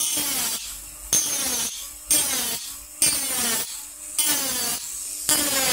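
A burr in a small rotary tool cutting into a titanium knife handle scale in short repeated strokes, about one a second. Each stroke starts sharply and its whine falls in pitch as the burr bites into the metal.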